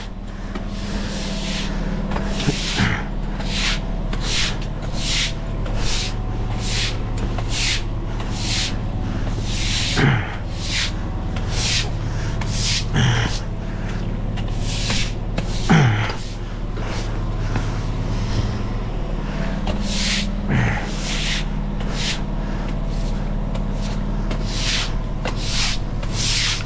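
Stiff broom sweeping a wet stone patio in steady, even strokes, about two a second, over a steady low hum. A few quick sounds swoop down in pitch along the way.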